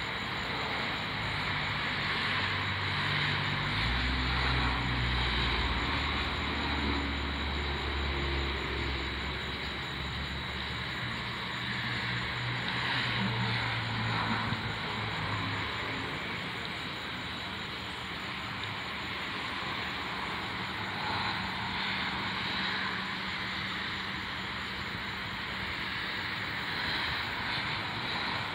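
A low engine drone over a steady high hiss. The drone is strongest from about four to eleven seconds in and fades out after about fifteen seconds.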